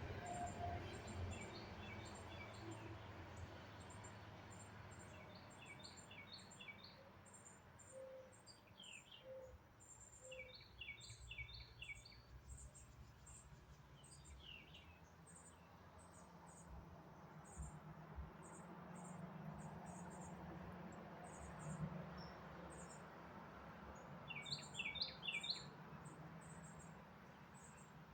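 Faint birds chirping: bursts of three to five quick chirps every few seconds, over a steady string of very high, short chirps and a low background rumble.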